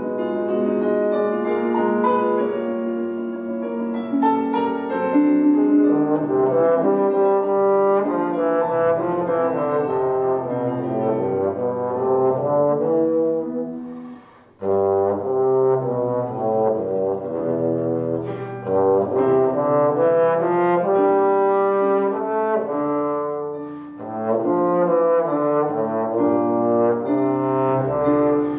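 A solo trombone playing a flowing passage of changing notes with no accompaniment, pausing briefly for breath about halfway through and again near the three-quarter mark.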